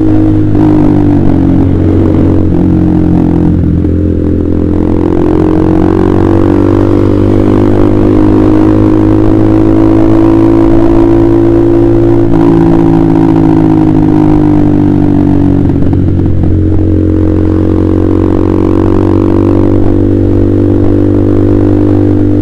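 Honda CBR150R's single-cylinder engine running through an aftermarket KJ Pro Performance exhaust while riding, its note drifting slowly up and down in pitch with a few abrupt shifts.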